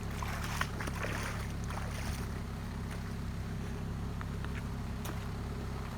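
Steady low rumble of wind on the microphone, with a faint hiss above it and a few light ticks.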